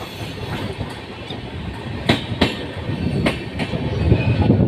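Passenger train rolling slowly into a station, its wheels clacking over rail joints in two quick double clicks about a second apart, over a steady rumble that grows louder toward the end.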